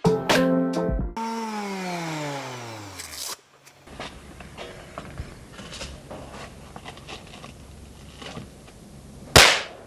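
Background music that stops about a second in, followed by a falling whine lasting about two seconds. Then several seconds of faint, even sandpaper rubbing on the carbon steel pan, ended by a loud sudden whoosh near the end.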